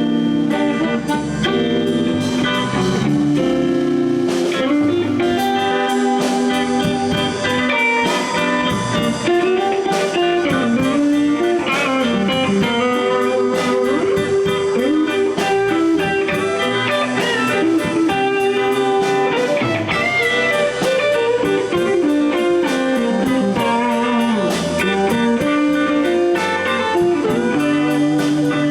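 Live blues band playing an instrumental break, with electric guitar to the fore over bass and drums and notes bent up and down.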